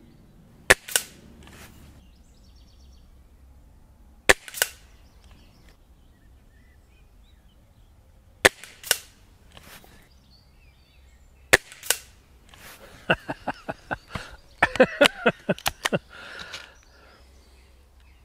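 BSA Lightning XL SE gas-ram break-barrel air rifle firing four shots, roughly four seconds apart. Each is a sharp crack followed a moment later by a second, softer crack. Near the end comes a quick run of metallic clicks and rattles.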